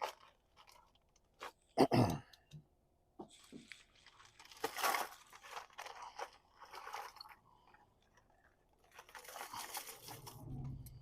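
Plastic zip-top bags crinkling and rustling as they are handled and opened, in several stretches, with a few sharp clicks in the first couple of seconds.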